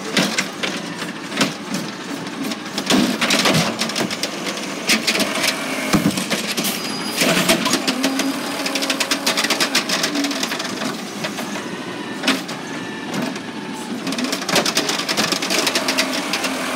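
Automated side-loader garbage truck's hydraulic arm dumping a plastic wheeled trash cart over the hopper and lowering it back to the ground. Many clunks and rattles of the cart against the metal arm sound over the steady running of the truck.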